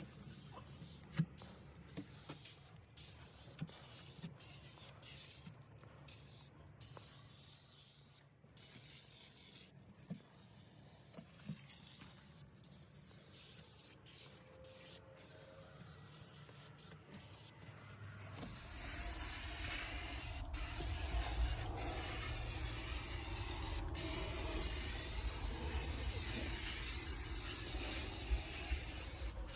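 Insecticide spray hissing in many short bursts, then about two-thirds through a loud continuous spray hiss with a low rumble underneath, broken briefly twice, as a bed bug treatment is applied.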